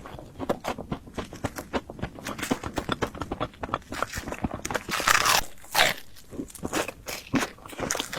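Close-up chewing and crunching of fried bread: many small irregular crunches and mouth clicks, with a louder burst of crunching about five seconds in.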